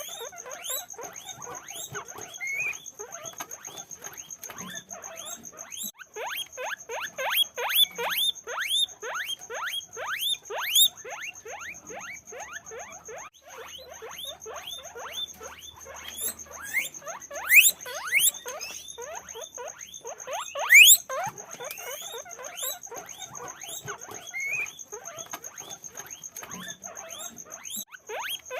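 Guinea pigs squeaking: a fast, continuous series of short upward-sweeping squeals, several a second, with a few louder squeals about two-thirds of the way through.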